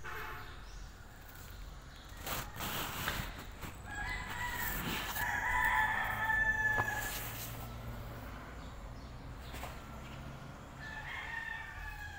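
A rooster crowing: one long, drawn-out crow about four seconds in, and another starting near the end. A few short knocks or rustles come before the first crow.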